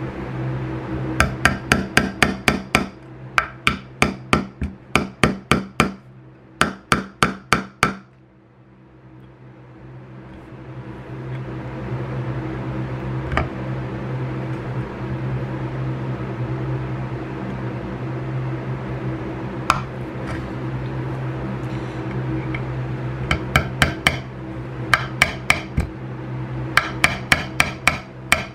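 Quick runs of sharp metal clicks, about five or six a second, as side cutters work on brass rods set in a wooden base to cut them down. The runs come in the first several seconds and again near the end, with a steady low hum and a couple of single clicks between.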